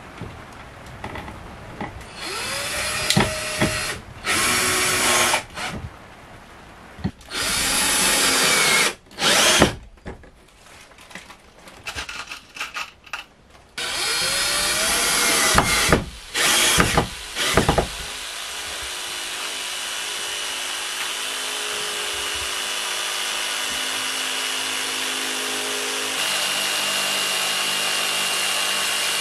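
Cordless drill driving screws into wooden wall panelling, in several short bursts, each rising in pitch as the motor spins up. About eighteen seconds in, a Bosch corded jigsaw starts cutting a wooden plank and runs steadily, its pitch stepping twice near the end.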